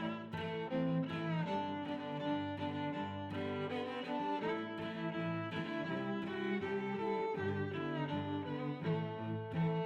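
Background music: bowed strings, violin and cello, playing sustained notes that change every second or so.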